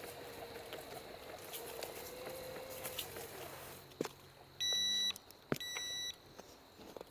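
Two electronic beeps, each about half a second long, a little under half a second apart and steady in pitch, over faint outdoor background with scattered light clicks.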